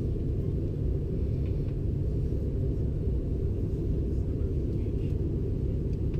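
Steady cabin rumble of a CRJ-900 regional jet in flight, heard from inside the cabin: the drone of its two rear-mounted turbofans and the airflow over the fuselage, deep and even with little above it, as it climbs through cloud.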